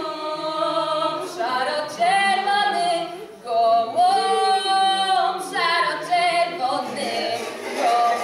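Unaccompanied singing voices in short phrases with long held notes.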